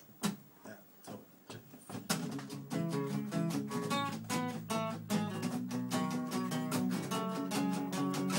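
Acoustic guitar strummed in steady chords, starting about two seconds in after a few soft clicks.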